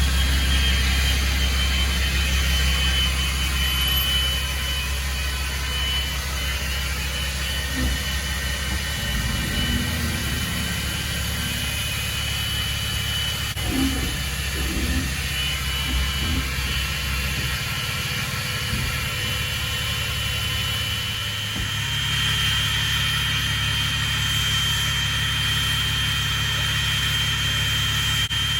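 Vehicle engine running steadily, with a constant high whine over its low hum; the engine gets a little louder about three quarters of the way in, and a few soft knocks come in the middle.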